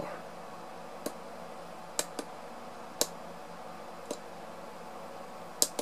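Push buttons on a DSO Shell handheld oscilloscope clicking as they are pressed: about six single clicks spaced irregularly, roughly a second apart, over a steady low background hum.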